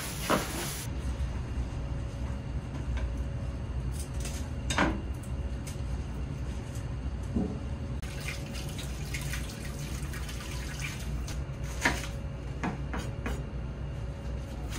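Tap water running at a stainless-steel kitchen sink as green onions are rinsed, with a few knocks and clatters of things set down, over a steady low hum.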